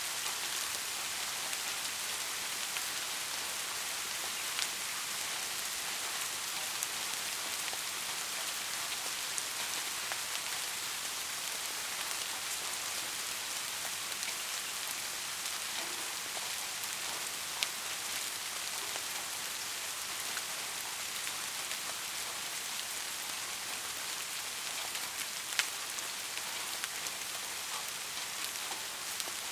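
Steady rainfall, a dense even hiss of drops, with a few sharper, louder drop hits now and then.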